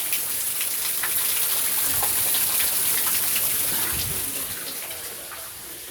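Heavy thunderstorm rain falling: a steady hiss with scattered drop patters, easing somewhat near the end.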